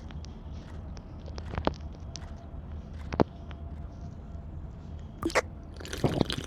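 Scattered light clicks and knocks over a low steady hum, with two longer, louder bursts near the end.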